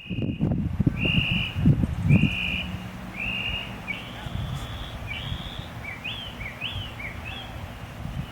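A bird singing clear whistled notes, about one a second, which change to quicker rising-and-falling notes near the end, over a low, gusty wind rumble on the microphone.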